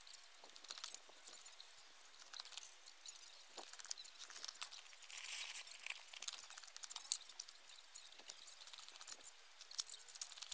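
Faint, quick clicks and light clatter, high in pitch with no bass: sped-up sound of camera crane parts being handled and fitted. One sharper click comes about seven seconds in.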